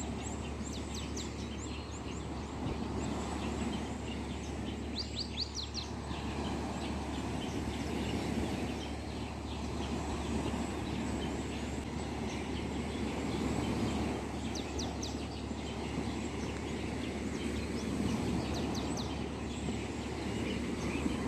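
Small waves washing steadily on a lakeshore, with birds chirping in short bursts of quick high notes several times.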